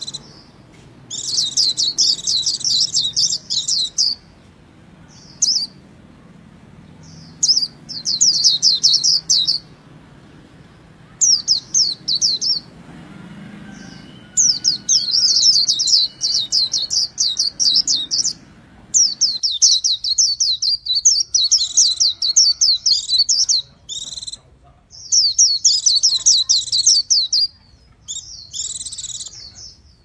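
Caged white-eye singing: phrases of rapid, high twittering notes, each lasting from about a second to several seconds, with short pauses between them.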